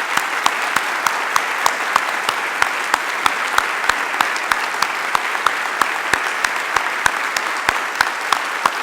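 Large assembly audience applauding steadily. One nearby clapper stands out with sharp claps about three times a second.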